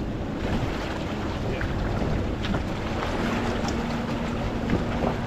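Wind buffeting the microphone over water moving around a small boat, with a faint steady hum coming in a little past halfway.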